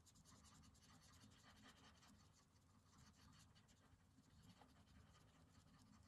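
Faint scratching of a wax-based Prismacolor coloured pencil on smooth, bright white paper, in many quick, light, irregular strokes as a small area is filled in.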